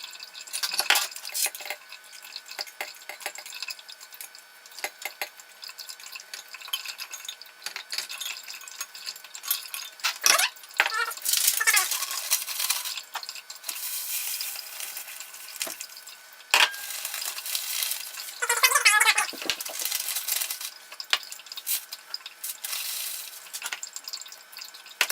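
Metal clinks and knocks as the column of a copper essential-oil still is handled and refilled, with several stretches of rustling and scraping as the plant material is packed into it.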